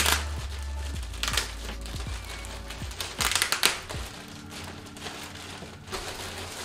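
Packaging crinkling and rustling in a few short bursts as a new backpack is unwrapped, over quiet background music.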